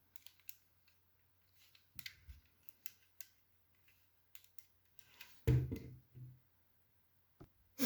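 Lego bricks being handled and pressed together: scattered faint sharp plastic clicks and taps, with a louder, duller knock about five and a half seconds in.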